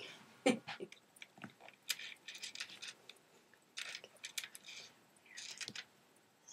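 A pen scratching on paper in short clusters of strokes, with a few soft knocks in the first second.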